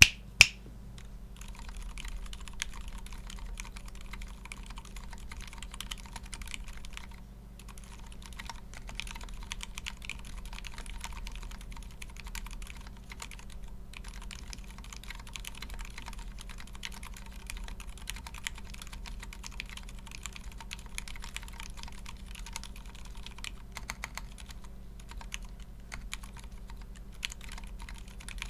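Typing on a Brutal60 mechanical keyboard with stock Gateron Silent Ink switches, an FR4 plate and original Cherry doubleshot keycaps: a steady run of very quiet, damped keystrokes, pausing briefly twice. One sharp, loud click stands out right at the start.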